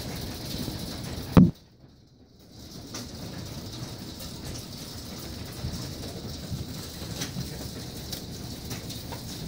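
Hail falling on a concrete patio and lawn, a steady patter of small ticks. About a second and a half in there is one loud knock, after which the sound drops out for about a second before the patter returns.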